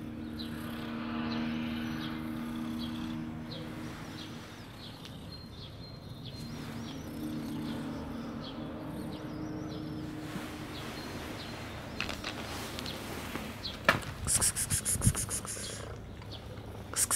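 Faint bird chirps over a low steady hum, with a few sharp clicks and a quick run of high ticking near the end.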